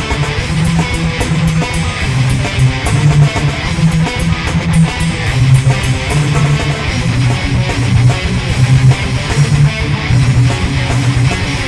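Hard rock band playing live: distorted electric guitar riffing over bass, with a steady beat of sharp drum and cymbal hits.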